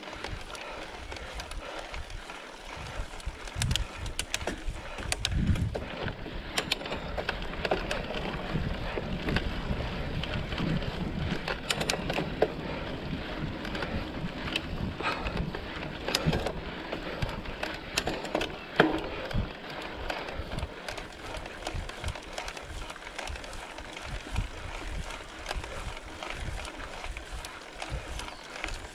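Mountain bike ridden over a rough dirt trail: tyre and ground noise with frequent short rattles and knocks from the bike, over an uneven low rumble.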